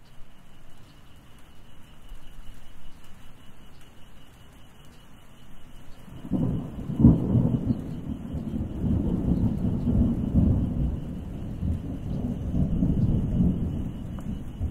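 Thunderstorm: rain falling with a low rumble, then a long roll of thunder building about six seconds in, its sharpest crack about a second later, rumbling on afterwards.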